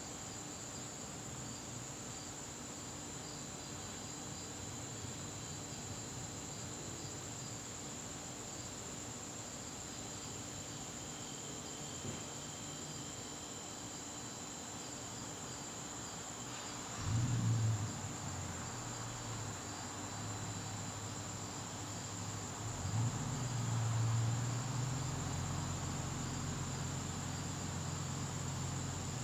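Garden crickets chirping: a steady high trill with a faster pulsed chirp beneath it. A low rumble rises suddenly a little past halfway, and another swells through the last third.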